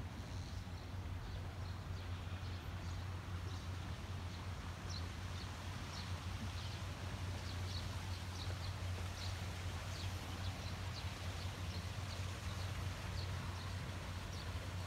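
Outdoor ambience: a steady low rumble, with small birds chirping in short, scattered high notes throughout.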